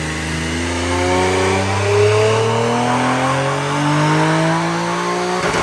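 Infiniti Q50 Red Sport's VR30DDTT 3.0-litre twin-turbo V6, breathing through 3-inch resonated full downpipes and a 3-inch resonated catback exhaust, revving steadily upward under load in a dyno pull. Near the end the throttle closes abruptly with a short burst of cracks.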